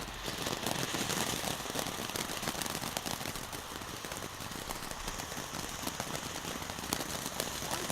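Ground firework going off with a steady, dense crackling and hiss that keeps up without a break, like a rapid string of tiny pops.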